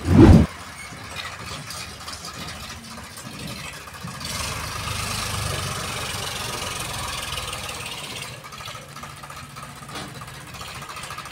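Eicher 551 tractor's diesel engine running as it pulls a loaded trolley, working harder for about four seconds in the middle, when a hiss rises over it. A loud thump right at the start.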